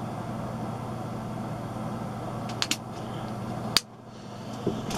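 Steady low background hum, with two light clicks a little past halfway and one sharp snap near the end, from handling or firing the .177 spring air pistol between chronograph shots.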